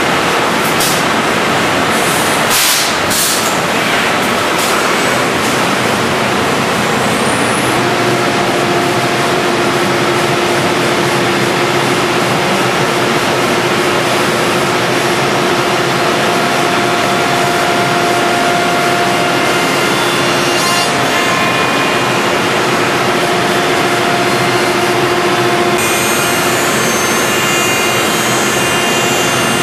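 HOMAG CNC machining center running a program: a loud, steady machine noise with a few short hiss-like bursts in the first few seconds. From about eight seconds a steady whine comes in, likely the router spindle at speed, and it drops out briefly around twenty seconds.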